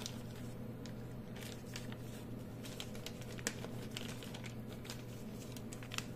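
Scattered light clicks, taps and crinkling of small parts and material being handled during a repair, over a steady low hum.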